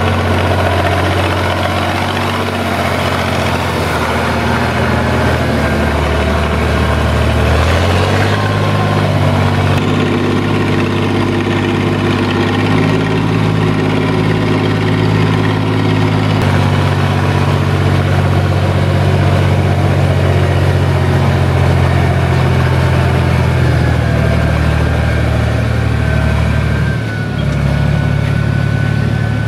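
SAME Laser 110 tractor's diesel engine running steadily under working load, its note changing abruptly a few times. Near the end a thin high whine sits over the engine.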